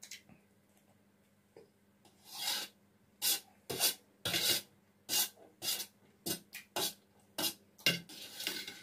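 Metal spoon scraping across a stainless steel plate, gathering fried rice in about a dozen short scraping strokes that start about two seconds in, a few of them longer.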